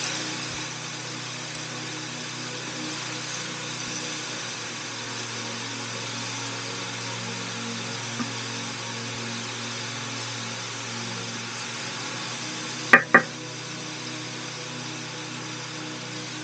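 Garlic, ginger and sweet chilli sauce sizzling and spitting in a hot pan, stirred with a wooden spatula scraping across the pan, over a steady low hum. Two sharp knocks close together about thirteen seconds in.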